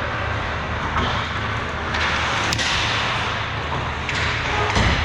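Ice hockey game sounds in a rink: a steady rush of arena noise, a sharp crack about two and a half seconds in, and a thump near the end.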